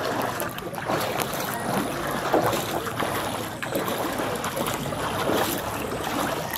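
Feet wading through shallow floodwater, sloshing and splashing at a walking pace of about one step every second or less.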